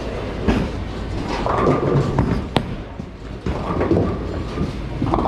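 Bowling alley sounds: bowling balls thudding onto the lanes and rolling with a low rumble, with scattered knocks and a sharp crack about two and a half seconds in.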